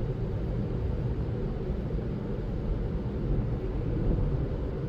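In-cabin rumble of a 2017 Honda CR-V's 1.5-litre turbo four-cylinder engine and road noise while driving, with the engine misfiring.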